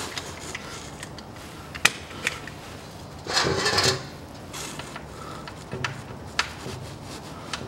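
Ratchet wrench and socket working the drain plug on a CVT transmission pan: a few separate sharp clicks, with a louder short rattling scrape about three and a half seconds in as the plug is loosened for draining.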